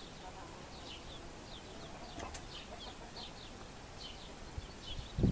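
Young chicks peeping: a steady run of short, high, downward-sliding peeps, several a second. A loud low thump comes right at the end.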